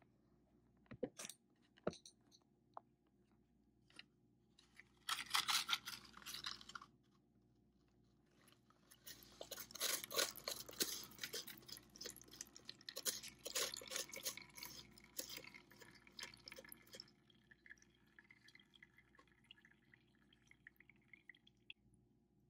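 A wet mixture of gravel, diatomaceous earth and salt is poured from a plastic cup into a filter paper in a funnel. There is a brief gritty scrape about five seconds in, then a dense crunchy run of gravel grating and water splashing that lasts roughly eight seconds, then a fainter trickle and drip as the water runs through the filter.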